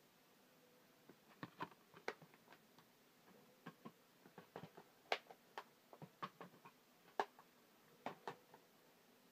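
Irregular small clicks and taps of a plastic Blu-ray case and cardboard box set being handled, scattered over several seconds, some sharper than others.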